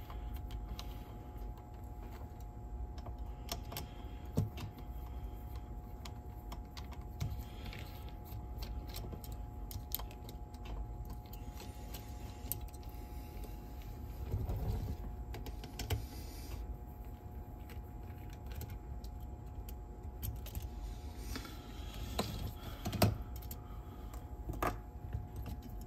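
Small scattered clicks and taps of hand work on a cassette deck's tape mechanism as it is taken apart again to redo a wrongly fitted drive belt, with a sharper knock or two near the end, over a steady hum.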